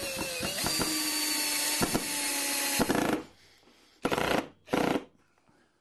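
Electric screw gun driving a wood screw: a steady motor whine for about three seconds, then two short bursts as the screw is snugged down tight.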